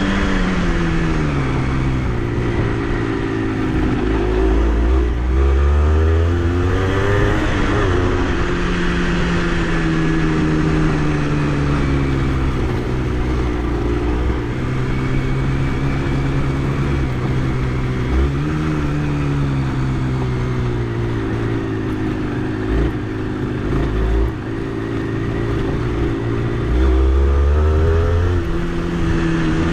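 Honda CRM80's two-stroke single-cylinder engine running under way, its revs repeatedly dropping and climbing as the bike is ridden through the gears. Wind buffets the microphone a couple of times.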